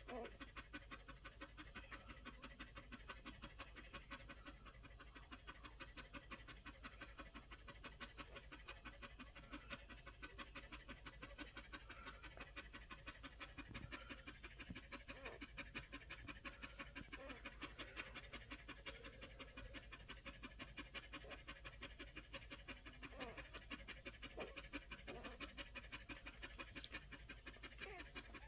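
Collie mother nursing her week-old puppies, panting fast and steadily; the panting is faint.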